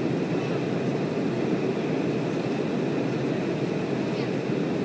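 Steady cabin noise of an airliner in flight: an even, low rushing drone of engines and airflow heard from inside the cabin.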